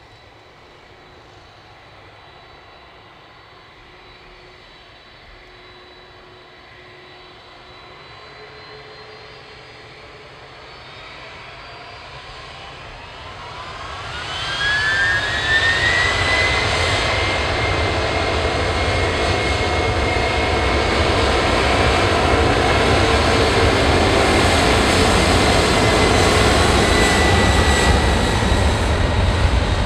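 Boeing 767-300F's twin jet engines spooling up to takeoff thrust: quiet at first, then a whine rising in pitch from about ten seconds in, levelling off as the engines turn loud and steady from about halfway through.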